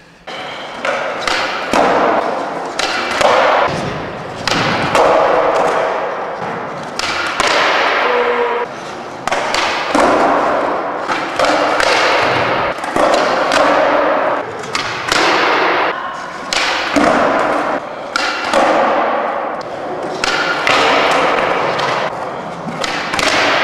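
Skateboards on a smooth skatepark floor: a steady series of sudden board knocks and landings, each followed by about a second of fading wheel noise as the boards roll.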